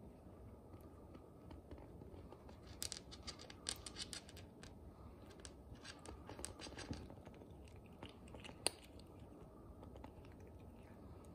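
Long-haired Scottish cat crunching dry kibble treats, in two quiet bouts of crisp chewing clicks, with one sharper click a little later.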